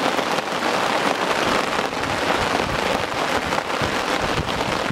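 Heavy rain falling steadily on a lake, a dense even patter of drops.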